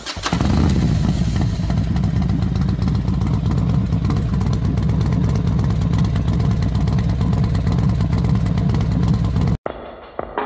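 A loud, steady low rumble with a fast flutter in it, like an engine running, which cuts off suddenly near the end. Drum-led music starts right after it.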